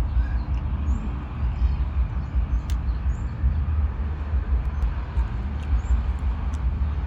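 A low, unsteady rumble with a few faint, short bird chirps over it.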